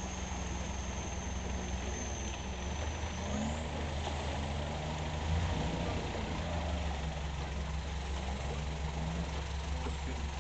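Motorboat engine running steadily with a low hum, its pitch shifting briefly a few seconds in.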